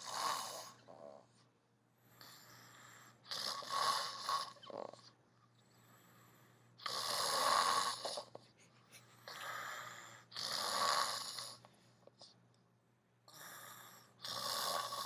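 A sleeping man snoring heavily: about six loud snores spaced a few seconds apart, with quiet breathing between them.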